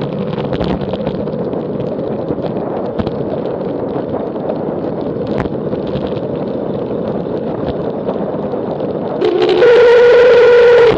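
Wind rushing over the camera on a fast descent, with scattered light knocks. About nine seconds in, a loud droning hum cuts in, stepping up in pitch after a moment: the strange noise that comes with a vibration while descending.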